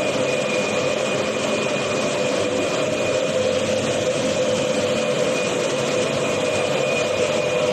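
Vertical glass washing machine running steadily: a continuous mechanical rush with a steady hum and a thin high whine.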